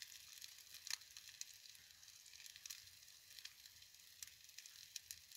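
Sausages frying in a pan: a faint, steady sizzle with scattered pops and spits, cutting off abruptly at the end.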